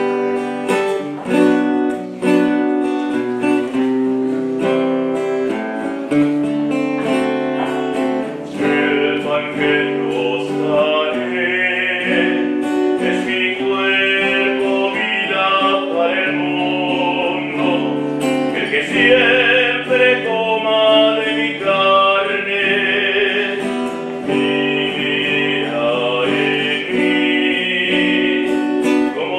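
A song sung to acoustic guitar. The guitar plays alone at first, and a singing voice comes in about a third of the way through.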